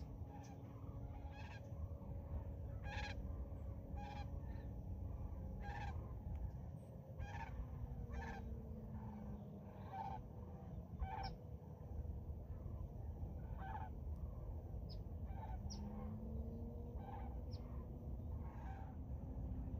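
A flock of geese calling, with many short honks overlapping at irregular intervals, over a steady low rumble.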